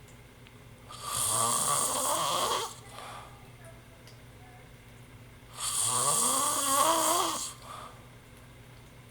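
Snoring: two long, loud snores about four and a half seconds apart, each rising in pitch over a breathy hiss.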